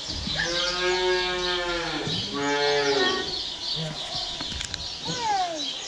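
A cow mooing twice: one long, steady call of about two seconds, then a shorter one.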